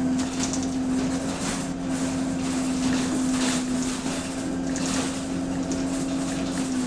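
Engine of a single-deck bus with an exhaust leak, heard from inside while it drives: a steady drone with light rattles, its pitch dropping right at the end.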